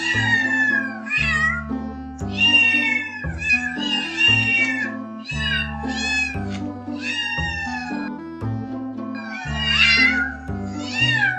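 Domestic cats meowing over and over, about a dozen meows in quick succession, most gliding down in pitch, over background music with a steady bass line.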